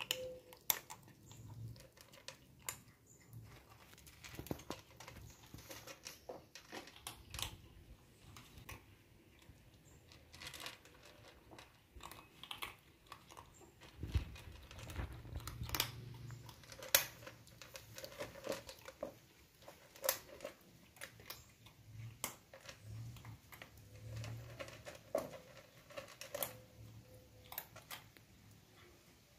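Kittens eating: irregular small clicks and smacks of chewing and lapping.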